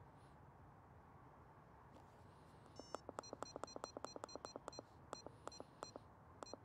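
A quick run of about twenty short electronic beeps from a handheld RigExpert Stick Pro antenna analyzer, starting about three seconds in. They come rapidly at first, then further apart, over faint background hiss.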